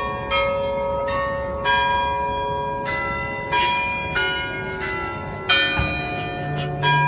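Church bells ringing in the bell tower of the Peter and Paul Cathedral. Several bells of different pitch are struck one after another, about once a second, and their tones ring on and overlap.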